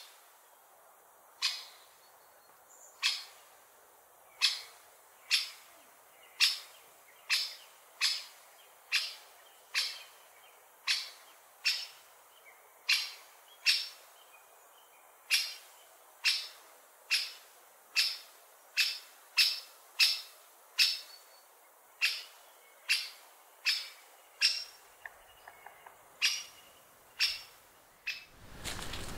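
A woodland bird repeating a short, sharp call about once a second, with faint bird song between the calls.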